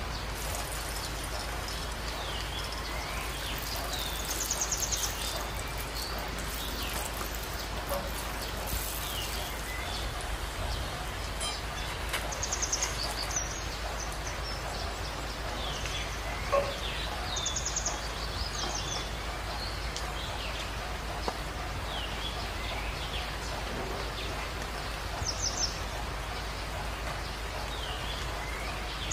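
A steady, even hiss. Short, high, trilling bird chirps come through it about four times.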